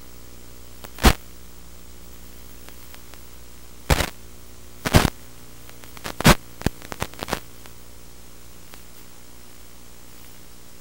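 Steady hiss and hum of static from an analog FPV video receiver's audio channel, broken by sharp crackling pops about one second in and in a cluster from about four to seven and a half seconds in.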